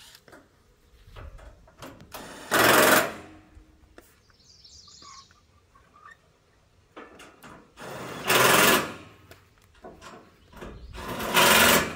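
Power drill running in three short bursts of about a second each, driving screws into a metal gazebo frame.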